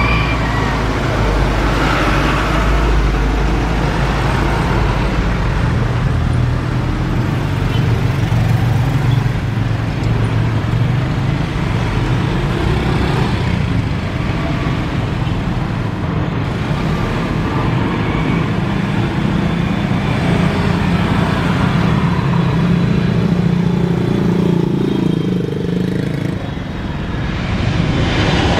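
A Boeing 777's twin turbofan engines on final approach and touchdown: a loud, steady rumble with hiss. The sound dips briefly near the end, then swells again as the jet rolls on the runway.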